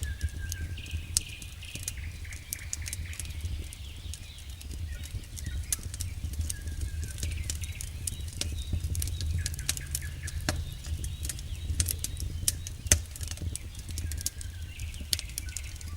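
Wood campfire burning, the firewood crackling with many sharp irregular pops over a steady low rumble.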